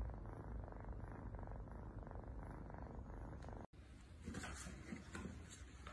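Tabby kitten purring steadily in a close, even pulse; it cuts off suddenly a little past halfway, followed by a few soft knocks and clicks.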